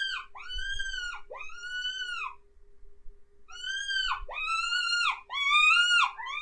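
Mouse distress squeaks from a predator call, imitating a wounded mouse: a run of high, arching squeaks, each about a second long, with a pause of about a second in the middle before they start again. A faint steady hum lies underneath.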